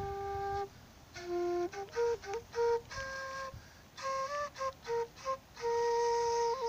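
Side-blown bamboo flute played solo and unaccompanied: a held note that stops just under a second in, a phrase of short notes with brief pauses and a small bend, then a long held note from near the end, with breath noise audible over the tone.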